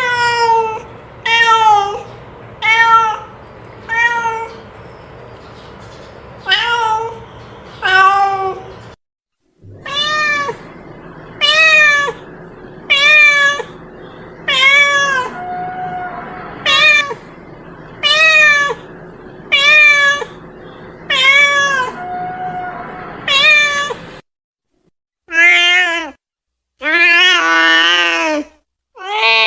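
Domestic cat meowing over and over, short meows about every second and a half, with a few longer, drawn-out meows near the end.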